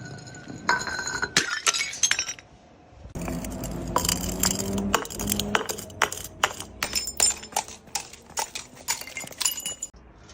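Glass bottles breaking: a quick cluster of crashes with ringing clinks in the first two seconds, then after a short pause a longer, dense stream of shattering glass and tinkling shards.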